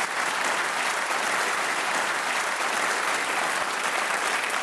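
Studio audience applauding steadily, a dense sustained clapping welcoming the panellists.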